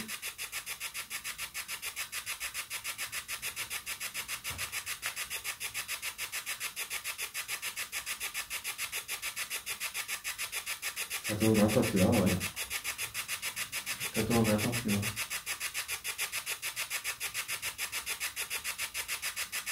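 Spirit box sweeping through radio stations: a rapid, even pulsing hiss of static. Two short voice-like snatches break through a little past halfway.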